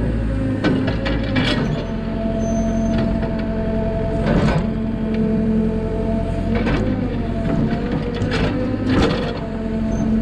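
Mini excavator running under load, heard from the operator's seat: a steady engine and hydraulic drone of several held tones, broken by about five sharp knocks and clunks as the bucket digs into the soil.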